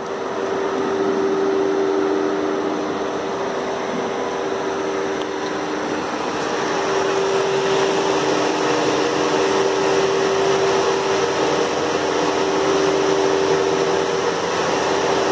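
Fiat 500e's electric A/C compressor running with a steady whine over a rush of air, cooling the traction battery while the cabin HVAC is off. The rush builds over the first couple of seconds, then holds steady.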